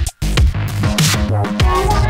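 Background music: an electronic track with a heavy bass line and drums. It cuts out for an instant a fraction of a second in.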